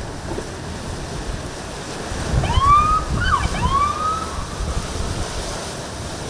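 Police boat siren giving three short rising whoops about two and a half seconds in, each lasting well under a second. Underneath runs a steady rush of wind on the microphone and choppy waves.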